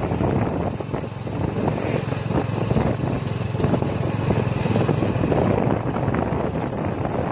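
Steady engine and road noise of an open-sided passenger cart driving along a road, with wind rumbling on the microphone.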